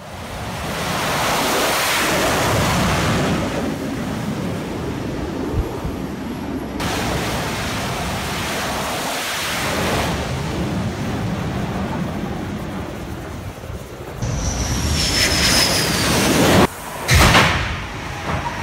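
F/A-18 Super Hornet jet engines running on an aircraft carrier's flight deck, a steady noisy roar through several cuts as the jets land on the arresting cable. Near the end, beside the arresting gear engines below deck, a high whine falls in pitch, and then two loud bangs come about half a second apart.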